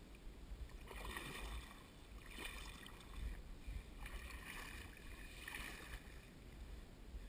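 Kayak paddle strokes dipping and pulling through river water, faint and about one a second, over a low rumble.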